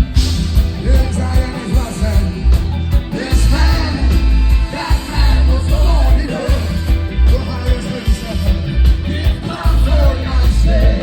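Live reggae band playing, with a man singing over a heavy, steady bass line.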